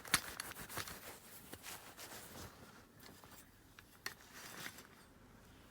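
Faint cloth rubbing on a steel bicycle crank as it is hand-polished, with a few light clicks, one just after the start and another about four seconds in.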